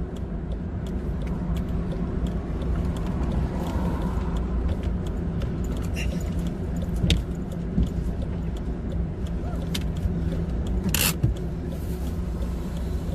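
A broken-down car rolling along as it is pushed, heard from inside the cabin: a steady low rumble of tyres on the road with scattered small ticks and creaks. About eleven seconds in comes one brief loud rush.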